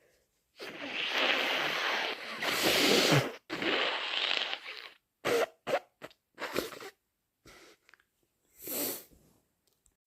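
A person blowing their nose hard, in two long blows of about three seconds and a second and a half, followed by several short sniffs.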